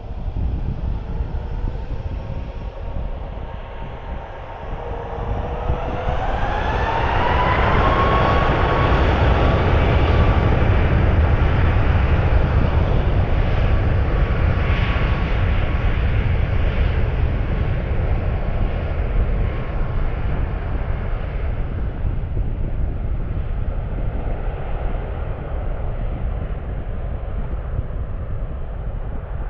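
Ryanair Boeing 737 MAX 8-200's CFM LEAP-1B turbofans spooling up to takeoff thrust: a rising whine about five seconds in, then loud jet noise that peaks around ten seconds in and slowly fades as the aircraft rolls away.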